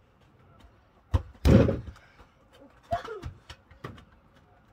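A football kicked with a thud about a second in, then slamming into wooden boards with a loud bang a moment later; a few lighter knocks and a short shout follow.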